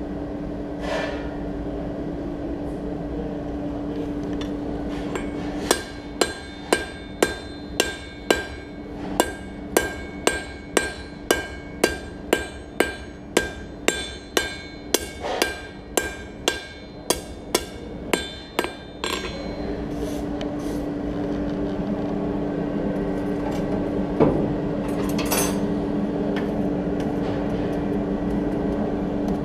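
Blacksmith's hammer forging hot steel on an anvil: a run of ringing blows, about two a second, for some thirteen seconds in the middle. A steady hum runs before and after the hammering.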